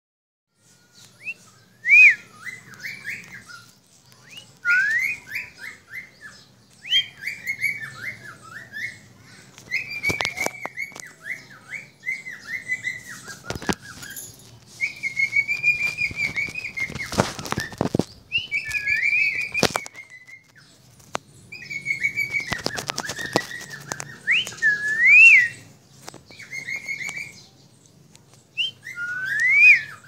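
Cockatiel whistling: short rising and falling whistled phrases repeated again and again, with a few sharp clicks in between.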